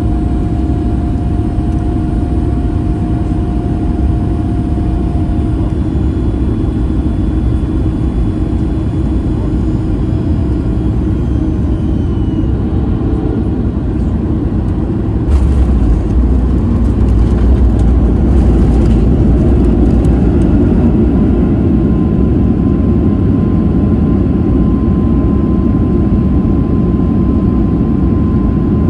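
Cabin noise over the wing of a Boeing 737 MAX 8 landing. Its CFM LEAP-1B engines and the airflow make a steady roar with a faint whine on final approach. About halfway through the wheels touch down with a burst of knocks and rattles, and the roar grows louder and stays up as the engines go into reverse thrust during the rollout on a wet runway.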